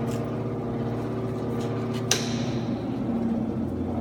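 Vibrating feeder with perforated metal screen decks running: a steady electric hum from its vibrating drive, with a single sharp knock that rings briefly about two seconds in.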